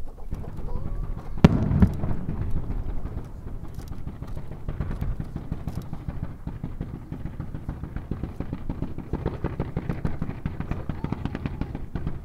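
Fireworks being fired in quick succession: one sharp bang about a second and a half in, then a rapid, continuous run of launch pops and crackles as a fan of rising stars goes up.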